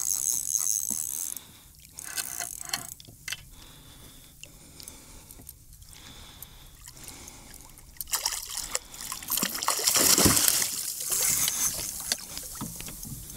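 Water splashing and trickling at the side of a kayak as a hooked small shark is brought in, in bursts with scattered knocks and clicks; the splashing is loudest about ten seconds in.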